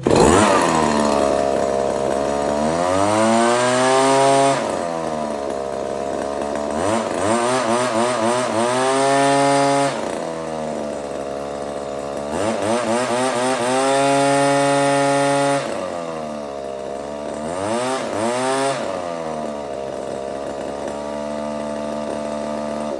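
Husqvarna leaf blower's two-stroke engine revved up to full throttle and held there four times, dropping back to idle between revs, running cleanly on a freshly rebuilt carburetor with the exhaust spark-arrestor screen removed.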